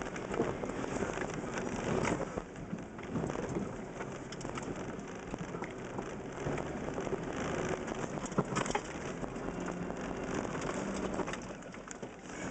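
Clods of mud and grit pattering and clattering against an off-road vehicle's windscreen and body, heard from inside the cabin over the engine's low rumble.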